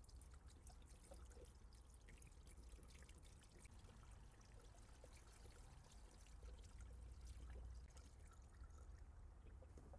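Coolant poured faintly from a gallon jug into a spill-proof funnel, refilling a car's cooling system.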